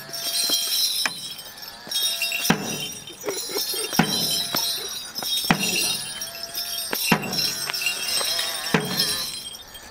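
Morris dancers' leg bells jingling as they move, with a sharp knock of a wooden stick against the road about every second and a half. Short held tones sound between the knocks.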